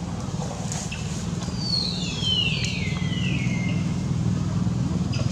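A motor engine running steadily in the background with a low, even hum. About two seconds in, a high call glides down in pitch over about a second.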